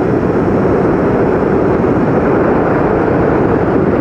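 Freefall wind rushing over the microphone during a tandem skydive: a loud, steady rush of low noise with no break.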